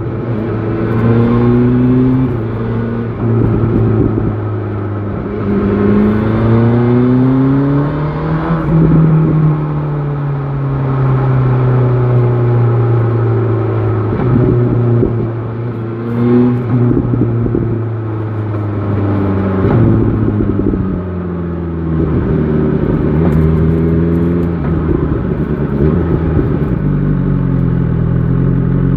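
BMW S1000 XR inline-four motorcycle engine running under way, its revs climbing in several pulls with the pitch dropping at each gear change and easing back between.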